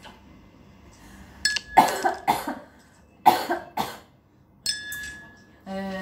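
A woman coughing: four short coughs in two pairs, the pairs about a second and a half apart.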